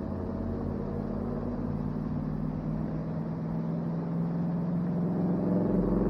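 A motor vehicle's engine droning as it passes, growing louder toward the end and then fading.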